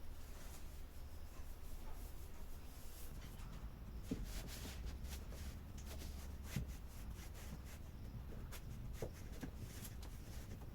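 Faint rustling and light handling clicks over a low steady hum, with a few sharper taps about four, six and a half, and nine seconds in.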